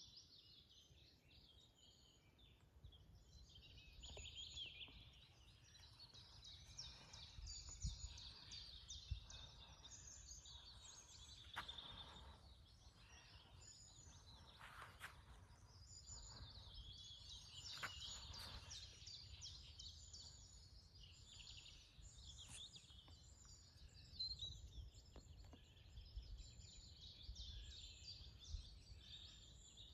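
Several small birds singing and chirping, faint and continuous, over a low rumble.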